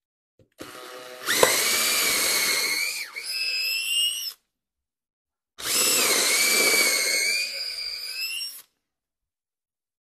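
Cordless drill with an 8 mm bit boring into a wooden boat transom, in two runs of about three seconds each. The motor's whine dips and recovers as the bit loads up in the wood.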